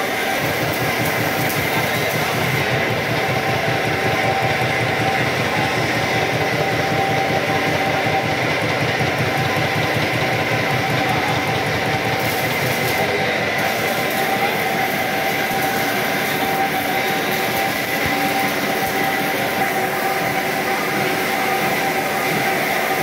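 Automatic jaggery batasha-making machine running, its depositor dropping hot jaggery syrup onto the conveyor belt. It makes a steady mechanical noise with a fast, even clatter and a steady whine.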